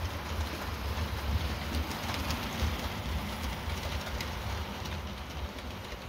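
Bachmann OO gauge model GWR Hall Class locomotive and coaches running on the track: a steady low motor hum with light clicks from the wheels on the rails as the train comes closer.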